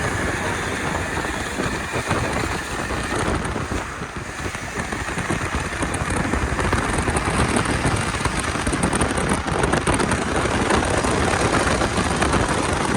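Steady rushing noise of a vehicle on the move, growing a little louder in the second half.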